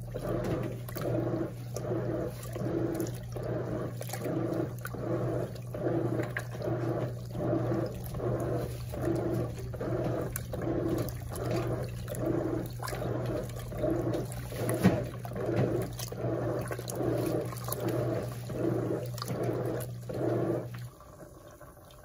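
Brastemp Eggo 1 kg mini washing machine at the very end of its rinse, with its ozone pump switched on. Water swishes rhythmically, about once every three-quarters of a second, over a steady electric hum, and both stop abruptly about a second before the end.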